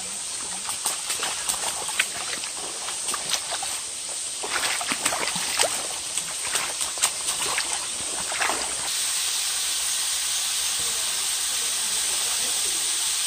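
Feet wading and splashing through a shallow, rocky stream over the steady rush of flowing water. The splashing stops about nine seconds in, leaving only the steady rush of water, a little louder.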